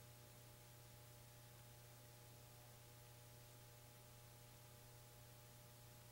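Near silence: only a faint steady hum with light hiss, unchanging.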